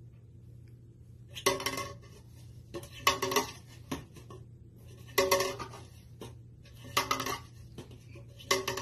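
A plastic cup knocked and slid about on a desktop by hand, in five short clattering bursts about every two seconds.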